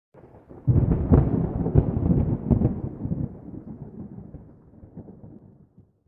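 Thunder-like rumble with a few sharp crackles, starting under a second in and fading away over about five seconds.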